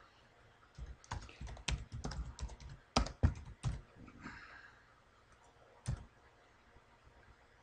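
Computer keyboard typing: a quick run of keystrokes starting about a second in and lasting some three seconds, then one lone click near six seconds.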